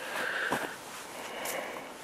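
Faint breathing and sniffing close to the microphone, with light handling noise: a soft knock about half a second in and a small click a little later.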